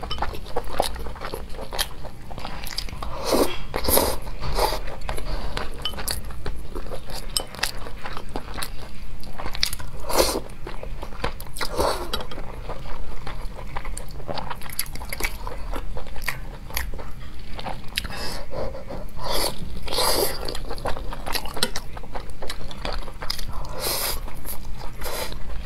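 Close-miked chewing and biting of red-braised pork belly and rice: wet mouth sounds and frequent sharp clicks, with louder bites at irregular intervals.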